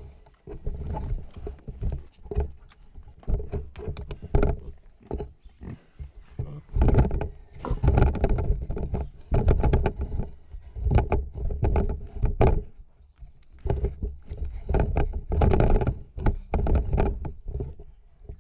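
Black pigs grunting and snuffling in irregular bursts right at the microphone, with clicks and knocks as a snout nudges the camera.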